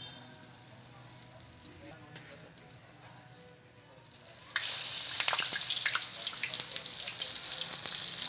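Hot oil in a pan sizzling softly with small crackles, then about four and a half seconds in a loud frying sizzle starts suddenly, full of crackling and spattering, as food goes into the hot oil.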